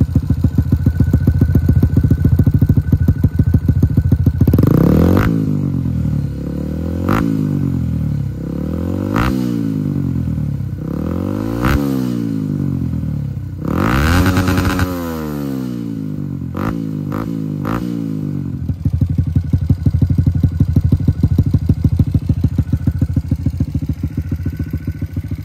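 2022 Honda Grom's single-cylinder engine through a Yoshimura RS-9T dual titanium exhaust, idling with an even pulse, then blipped about seven times, each rev rising and falling, the longest near the middle. Several blips end in a sharp crack. It settles back to a steady idle for the last several seconds.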